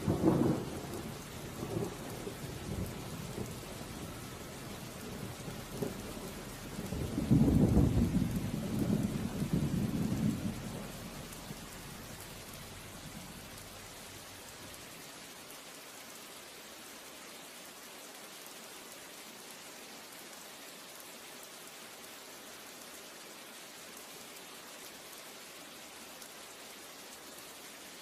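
Steady rain with two rolls of thunder: a sudden clap right at the start that rumbles away, and a longer, louder rumble from about 7 to 11 seconds that fades out over the next few seconds.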